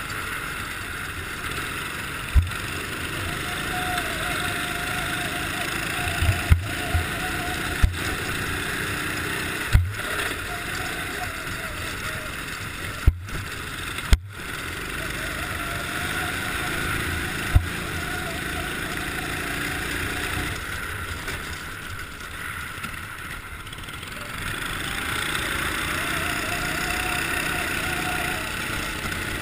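Racing kart engine running at speed, its note rising and falling through the corners, with a noisy rush from the ice track. Sharp knocks are heard about six times. The engine eases off about three-quarters of the way through and picks up again near the end.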